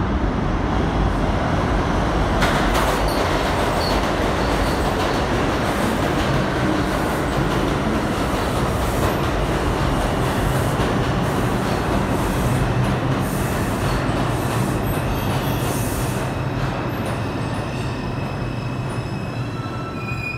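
Ten-car Bombardier R142 subway train pulling into an underground station and braking to a stop, a loud steady rumble of wheels on rail. Thin high whining tones come in as it slows near the end.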